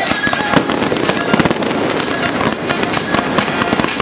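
Aerial fireworks bursting and crackling in quick succession, a dense run of sharp bangs and cracks with no pause.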